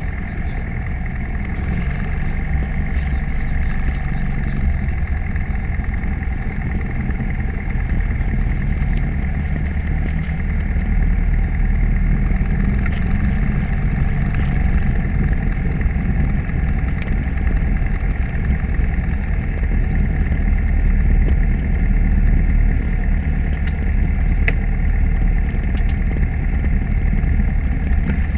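Piper PA-28 Cherokee's piston engine and propeller droning steadily, heard from inside the cabin.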